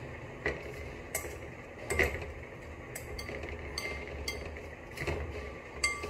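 Irregular clinks and taps of a utensil against a glass mixing bowl, about one a second, as a whole raw chicken is worked in marinade, over a low steady hum.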